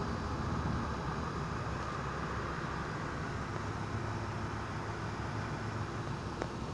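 Steady thunderstorm noise: an even rushing hiss over a continuous low rumble, with one short click near the end.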